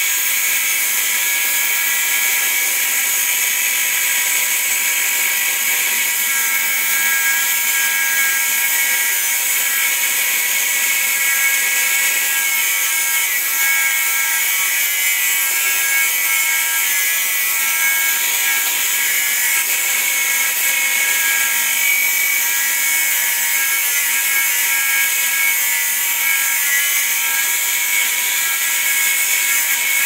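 Angle grinder running at a steady pitch while its abrasive disc cuts into a stuck steel bearing on a washing-machine transmission shaft: a continuous motor whine under loud grinding noise.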